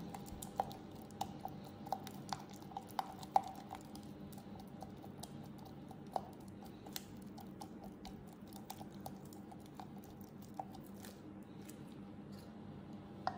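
Silicone spatula stirring and mashing shea butter with sweet almond oil in a beaker: soft squishing with irregular light clicks of the spatula against the container, quickest in the first few seconds and sparser after. The butter is being worked from clumps into a creamy blend.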